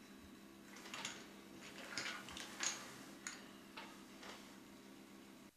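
Faint, irregular clicks of poker chips being handled and knocked together, about eight small clicks spread unevenly, over a low steady hum.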